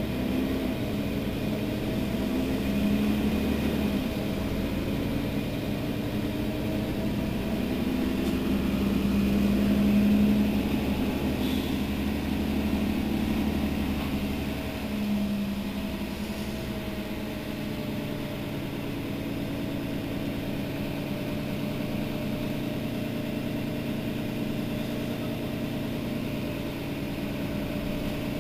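Mercedes-Benz Citaro facelift city bus idling at a standstill. The engine swells a little about ten seconds in, then settles to a steadier, slightly quieter idle from about sixteen seconds on.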